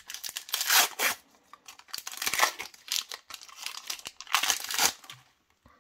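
A Panini Super Mario trading card pack being torn open by hand, its wrapper ripping and crinkling in irregular bursts. The loudest rips come about a second in and again a little before the end.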